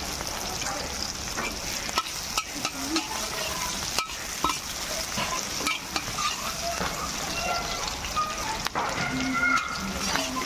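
Sliced onions and green chillies sizzling as they fry in hot oil in a metal wok, stirred with a metal spatula that scrapes and clicks against the pan.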